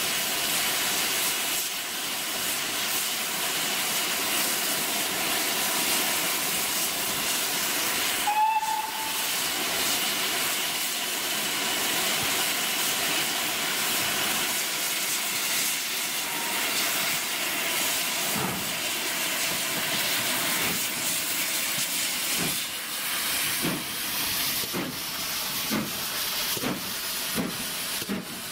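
GWR Hall-class steam locomotive 4936 Kinlet Hall hissing steadily from its cylinder drain cocks as it stands, with a short whistle about eight seconds in. From about eighteen seconds in it starts away, its exhaust chuffs slow at first and quickening.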